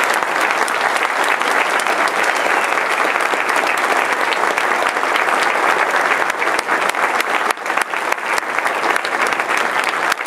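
Audience applauding steadily, a dense mass of clapping.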